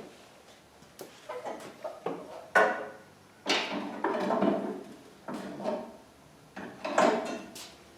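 Steel bandsaw-table parts and tools being handled during assembly: a series of irregular metal clanks and knocks, several ringing briefly, with a longer stretch of scraping and rattling about halfway through.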